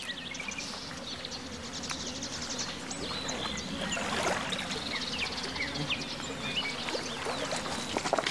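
Lakeshore ambience: many small birds chirping and twittering over a steady wash of water, with a few faint clicks.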